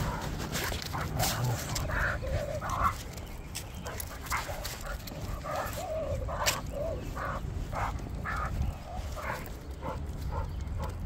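Dog whining and yipping in short high cries, repeated about once a second: an excited dog straining on the leash during a walk.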